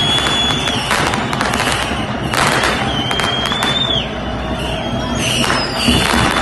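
Firecrackers banging again and again, several a second at times, over the noise of a packed crowd. A high whistle is held through the first second and again for about a second and a half midway, the second ending in a quick drop in pitch.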